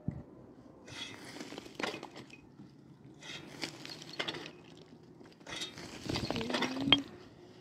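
A pick digging into stony, gravelly soil: repeated crunching strikes and scrapes of metal on earth and stones, about one every second or two, with a sharper hit near the end.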